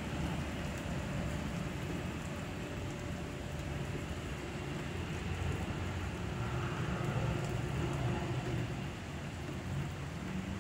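Heavy rain falling steadily on pavement, with a low rumble beneath that swells briefly past the middle.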